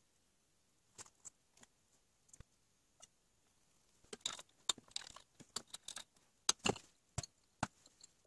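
Scattered light clicks and clinks from brown glass swing-top beer bottles and their wire-bail stoppers being handled. The taps come thicker and faster in the second half.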